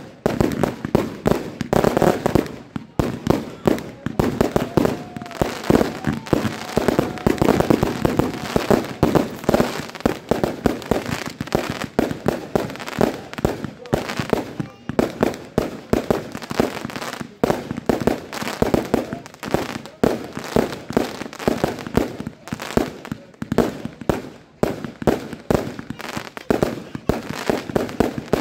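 Aerial fireworks bursting in rapid, continuous succession: many sharp bangs a second, overlapping with no break.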